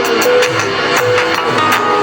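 Nokia 5130 XpressMusic ringtone playing: a synthesized tune of short held notes over a steady percussion beat.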